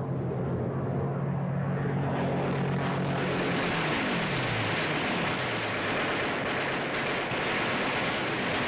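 Propeller warplanes droning overhead, their engine hum steady and then a rushing roar building. About four seconds in, two planes pass with their pitch dropping.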